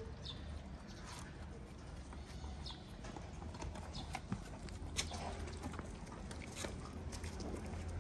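Outdoor street ambience with a low steady hum, scattered sharp clicks and taps from cats eating out of plastic food trays and footsteps on pavement, and a few short high chirps.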